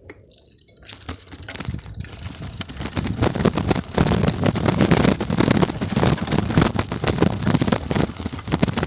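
Bicycle rattling and clattering over a rough downhill trail: a dense, fast stream of clicks and knocks that builds over the first few seconds and then stays loud.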